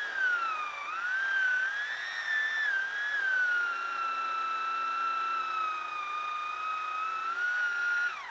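Chainsaw running at high revs, a high whine whose pitch dips about a second in and then wavers, before it winds down quickly at the end as the engine is throttled off.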